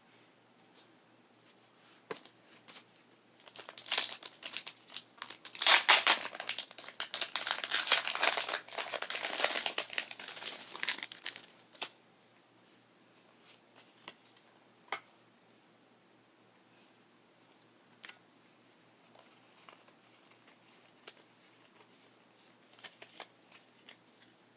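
Foil wrapper of a Pokémon card booster pack being torn open and crinkled, a loud crackling rustle for about seven seconds starting a few seconds in, followed by a few light taps and clicks as the cards are handled.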